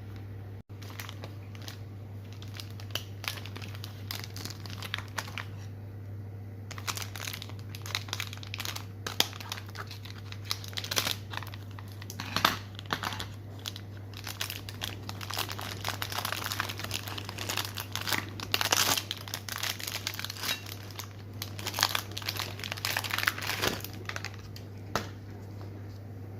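Packaging of a panettone being handled and unwrapped, with crinkling and rustling that starts sparse and grows busy from about a quarter of the way in. A steady low hum runs beneath it.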